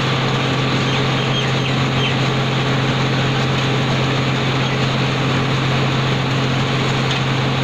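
Kinnow orange waxing and packing machine running: a steady mechanical hum with a constant low drone and an even noise of conveyors and rollers carrying the fruit.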